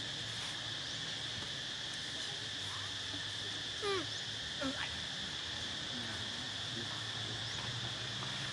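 Steady chorus of forest insects, an even high-pitched drone, with two short animal calls, each a quick upward sweep, a little before the middle.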